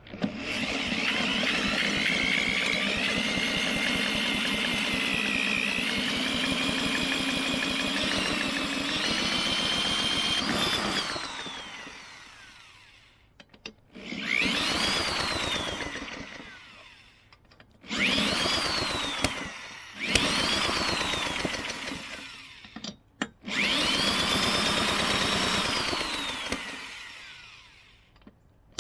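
Power-tool motor whining in repeated bursts while the Briggs & Stratton lawnmower engine is spun over in attempts to start it. The first run lasts about ten seconds with a wavering pitch. Four shorter bursts follow, each rising in pitch and then winding down as it stops.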